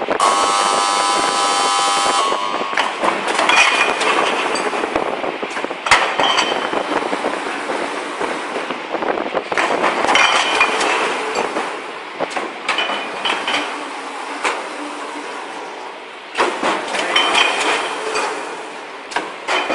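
Automatic screen printing machine for glass and plastic bottles running: dense mechanical clatter and sharp knocks, with louder bursts recurring every few seconds as it cycles. A steady high tone with several pitches sounds for about the first two seconds.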